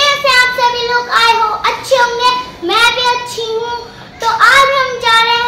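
A young girl singing unaccompanied in short phrases, holding notes that bend at their ends, with brief breaks between phrases.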